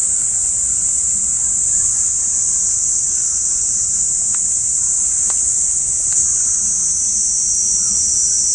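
Loud, steady high-pitched drone of singing insects, with a few faint clicks in the middle.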